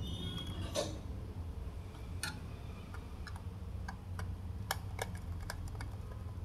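Scattered small clicks and ticks of a screwdriver and wire ends working the screw terminals of a plastic water level controller module, over a low steady hum.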